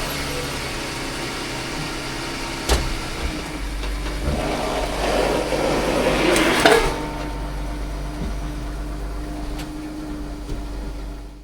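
Car engine running steadily at idle, with a single click about three seconds in and a louder rushing noise from about four to seven seconds.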